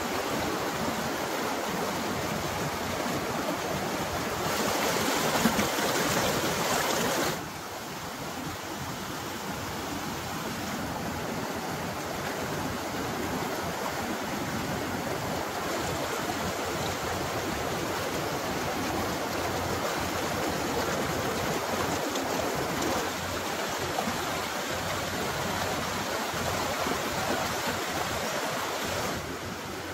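A fast-flowing rocky river running steadily, a continuous hiss of whitewater. It grows louder and brighter for a few seconds about five seconds in, then drops off suddenly.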